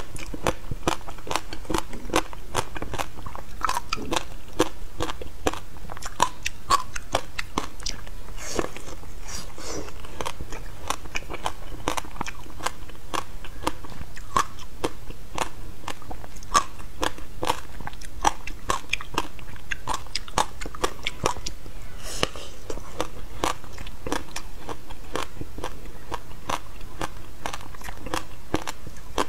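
Frozen shaved ice set with passion fruit pulp and seeds being bitten and chewed close to a clip-on microphone: a dense, continuous run of sharp crunching cracks.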